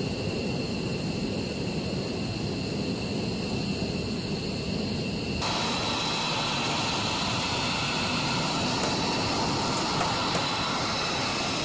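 Fighter jet engines running, a steady rushing noise with a high turbine whine. The pitch and balance of the whine change abruptly about five and a half seconds in.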